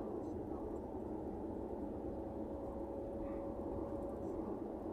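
Steady road and engine noise inside a moving car's cabin, with a faint steady whine that comes in about a second in and fades shortly before the end.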